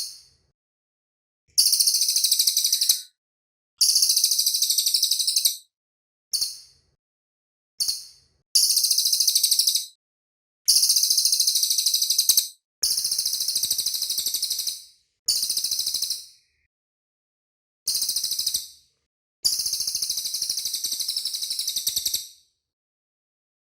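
Cililin songbird singing in fast, tightly packed, very high-pitched trills. The song comes in about eleven bursts of varying length, each ending abruptly, with silent gaps between them.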